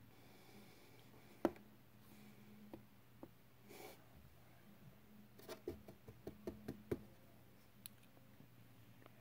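Light clicks and knocks of small plastic cosmetic bottles and tubes being handled in a drawer: one sharp click about a second and a half in, a brief rustle near four seconds, then a quick run of about eight taps between five and seven seconds, over a faint steady hum.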